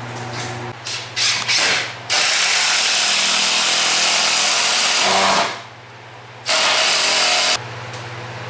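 Handheld power tool triggered in a few short bursts, then run for about three seconds and let wind down with a falling whine, then run again for about a second, over a steady background hum.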